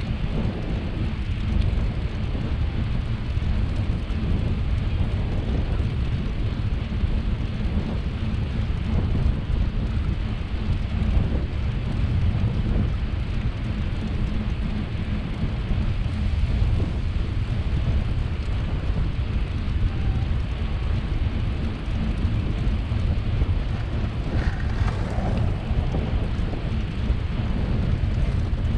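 Wind rumbling steadily on the microphone of a camera on a moving bicycle, mixed with road noise from the tyres rolling along a paved path.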